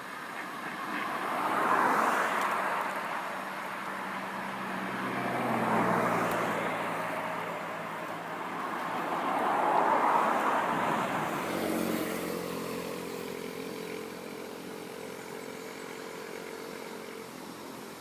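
Road traffic: three vehicles pass one after another, each sound swelling and then fading over a few seconds, leaving a steady low hum near the end.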